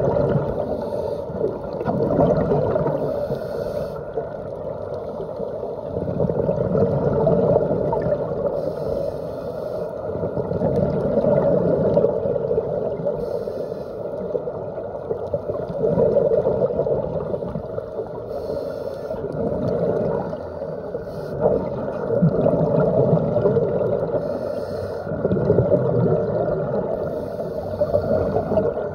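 Scuba regulator breathing and exhaled air bubbles heard underwater through a phone's waterproof dive case: a muffled rumbling gurgle that swells and fades in a slow breathing rhythm, a swell every few seconds.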